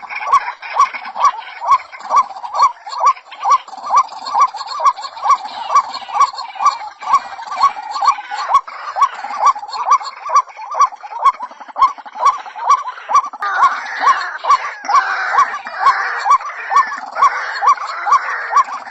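White-breasted waterhen (ruak-ruak) calling: a steady run of short hoarse notes, about two to three a second, with a louder, harsher croaking call joining in about two-thirds of the way through.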